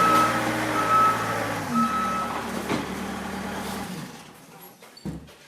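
A heavy vehicle's engine running while its backup alarm beeps about once a second. The beeping stops a little over two seconds in, and the engine sound dies away by about four seconds in, leaving a faint knock near the end.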